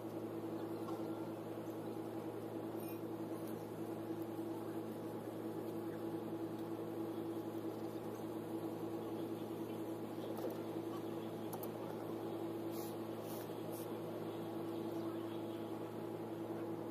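Steady mechanical hum with one strong held tone and a few lower tones beneath it, unchanging throughout.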